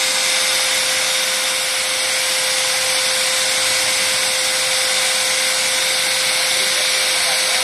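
Electric drill clamped in a homemade screw-fed rail-drilling frame, running steadily as its bit cuts into a steel rail cooled with poured water. Its steady motor whine sits over constant cutting noise.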